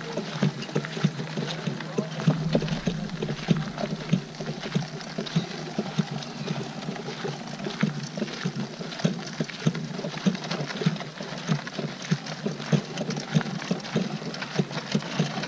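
A loaded wheeled fishing cart rolling and rattling over a gravelly dirt road, with footsteps crunching: a dense, uneven stream of small clicks and crunches.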